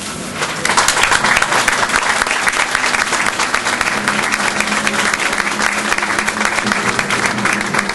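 A crowd of guests applauding, the clapping swelling in about half a second in and carrying on steadily.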